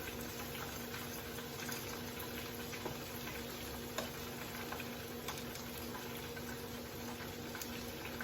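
Coated shrimp deep-frying in hot oil: a steady sizzle with scattered small pops. A steady low hum sits underneath.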